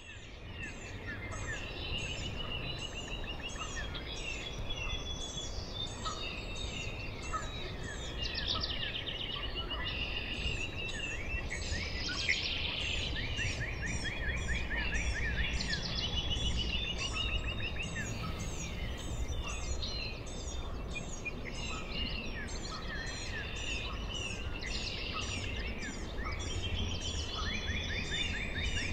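Dawn chorus: many birds singing at once in overlapping chirps, trills and whistles, with one high note repeated about twice a second, over a steady low rumble. It fades in at the start.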